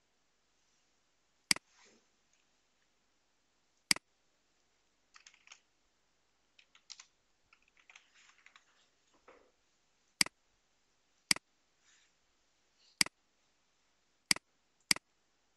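Sharp computer mouse clicks, seven of them, spaced irregularly, with a stretch of soft keyboard typing in the middle.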